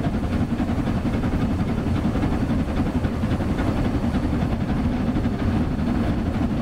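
Model Schools Class steam locomotive running along the track close by: a steady rumble of wheels and mechanism with a rapid, fine clatter.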